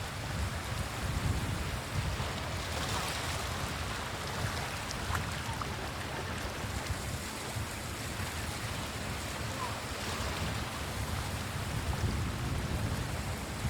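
Surf washing onto a sandy beach in a steady hiss, with wind buffeting the microphone in a low rumble that grows stronger near the end.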